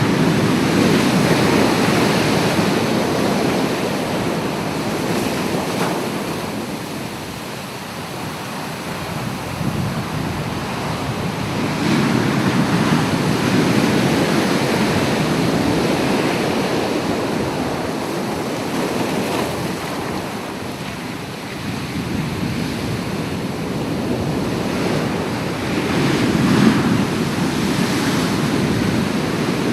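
Ocean waves breaking and washing ashore in a steady wash of surf, swelling and easing every several seconds, with wind buffeting the microphone.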